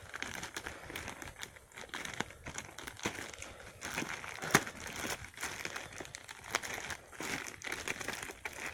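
Packaging being handled: crinkling and rustling with many small irregular clicks, and a sharper tap about four and a half seconds in.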